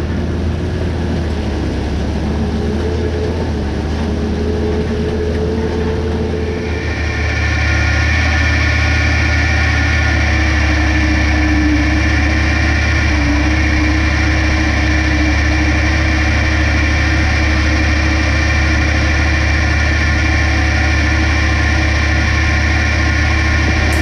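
John Deere 6506 tractor and slurry tanker running steadily while injecting slurry: a deep continuous engine hum. About seven seconds in the sound shifts and a steady high whine joins it.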